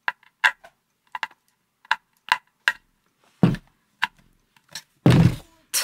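Clicks and knocks of a round metal cable plug being worked into the socket on the back of a wooden bookshelf speaker, about two a second. Two duller thumps of the speaker cabinet being handled come about three and a half and five seconds in, the second the loudest.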